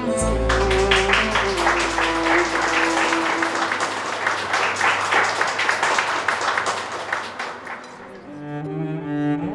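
A live band's last chord rings out under audience applause, the clapping dying away after about eight seconds. Near the end a slow melody on cello and bowed strings begins.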